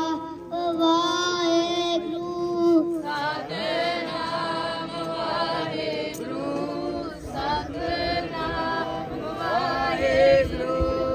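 A group of voices, children's among them, singing a chant in long held notes: one clear line for the first few seconds, then several voices overlapping.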